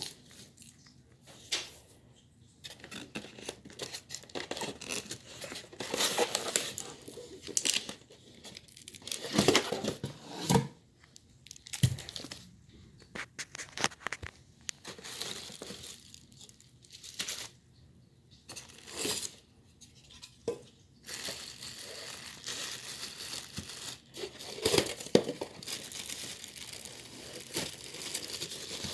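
Packaging being torn open and crinkled by hand: irregular bursts of tearing and crumpling with scattered knocks.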